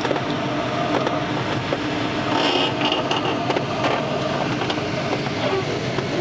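Steady rush of air over the canopy inside an engineless glider cockpit in gliding flight, with scattered light clicks and rattles.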